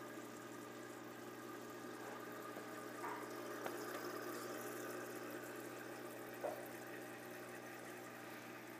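A steady low hum from a small motor, with a faint water trickle under it; a few light taps about three seconds in and again past six seconds.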